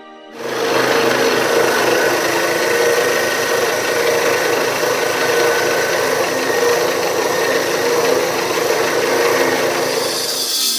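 Bench scroll saw running, its reciprocating blade cutting a thin wooden strip along a paper letter pattern. A loud, steady sawing noise with a fine, even rattle that starts about half a second in.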